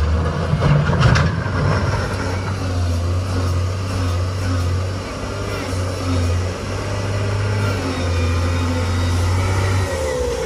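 Heavy diesel engine running with a steady low drone, with a short spell of clanking about a second in.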